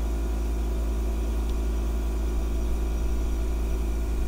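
A steady low mechanical hum with a low rumble beneath it.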